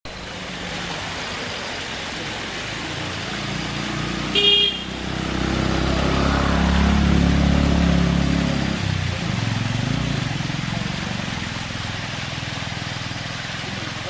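A small waterfall runs steadily over rocks under a motor vehicle passing close by. About four and a half seconds in the vehicle gives one short horn toot, the loudest sound here. Its engine rumble then swells, peaks a few seconds later and fades away.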